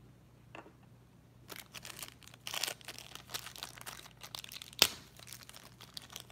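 Packaging of a mystery pin pack being torn open and crinkled by hand, in irregular crackling rustles. One sharp snap near the end is the loudest sound.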